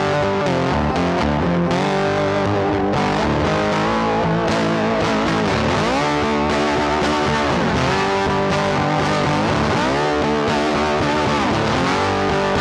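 Background rock music with distorted electric guitar, bent guitar notes and bass.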